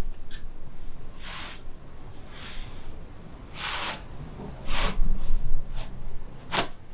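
A few short breaths, then one sharp crack near the end: a joint cavitating during a chiropractic/osteopathic adjustment.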